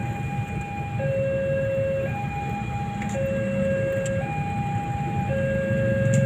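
Railway level-crossing alarm sounding its two-tone warning, a higher and a lower tone alternating about once a second. Underneath runs the low rumble of a container freight train passing slowly over the crossing, growing louder near the end.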